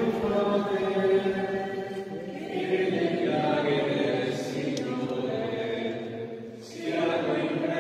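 A group of voices singing a slow hymn together in long held notes, with a brief pause for breath near the end.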